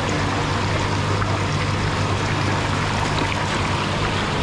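Water running and trickling in live seafood tanks, over a steady low hum.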